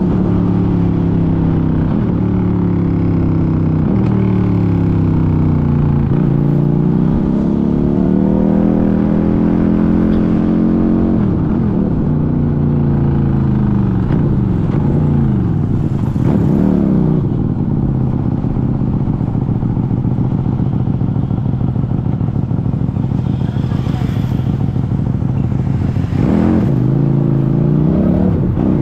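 QJMotor SRV400 V-twin motorcycle engine running under way. Its note dips and climbs again in pitch several times as the revs rise and fall.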